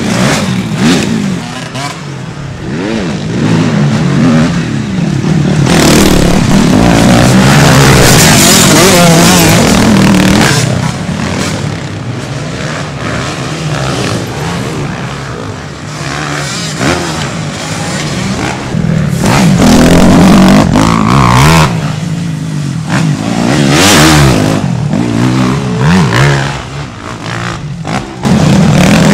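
Motocross dirt bike engines revving hard on a dirt track, the pitch repeatedly rising and falling with throttle and gear changes. The sound swells loudest as bikes pass several times, around a third of the way in, near the middle and at the end.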